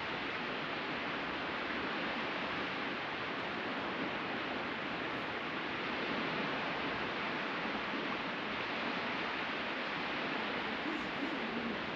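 Ocean surf washing on a beach, a steady even hiss with no single wave break standing out.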